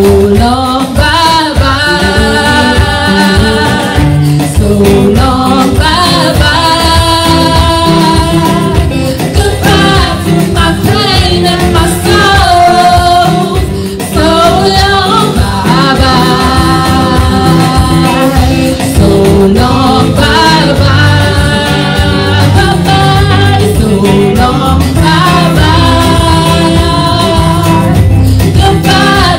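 Live gospel praise-and-worship singing: women's voices on microphones singing long held phrases over steady instrumental backing.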